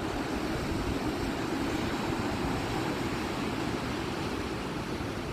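Strong wind buffeting the microphone in a steady rumbling rush, over the wash of breaking ocean waves.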